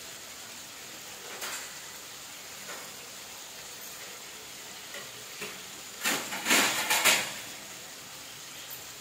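Chicken and tomatoes sizzling faintly in an aluminium karahi, with a few light clicks, then a burst of clattering metal about six seconds in as the lid is set on the pan.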